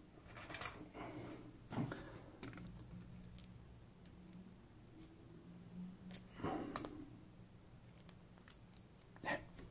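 Faint, scattered clicks and taps of small tools and lock parts being handled and rummaged through. A few louder clicks come about two seconds in and again between six and seven seconds in.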